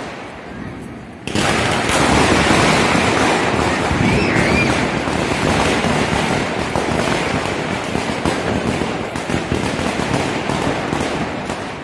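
Diwali firecrackers going off in a dense, continuous crackling rattle that starts suddenly about a second in and slowly fades over about ten seconds.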